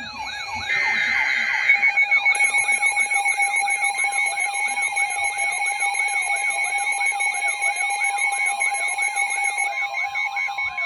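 Emergency alert tones layered with siren and alarm sounds: a second of buzzy, screeching data-burst tone near the start, then a siren wailing up and down about twice a second over rapid electronic beeping and a steady tone. Another steady alert tone joins about four seconds in.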